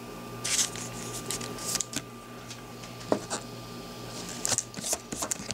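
Baseball trading cards rustling, sliding and tapping as they are handled and set down on a stack, with a few sharp clicks. A faint steady whine runs underneath.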